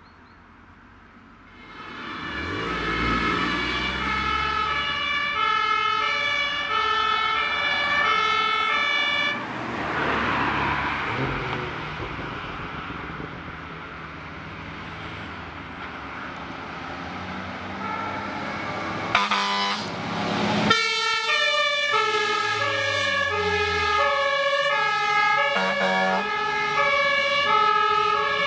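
German fire engine's two-tone siren (Martinshorn) alternating between a high and a low note about every half second, over the truck's engine. It starts about a second and a half in and changes abruptly about two-thirds of the way through.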